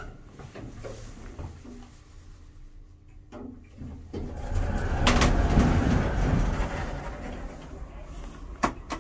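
Traction lift car noise: a faint knock, then for a few seconds about halfway through a louder low rumbling whoosh with a click in it, as of the car under way. Two sharp clicks come near the end.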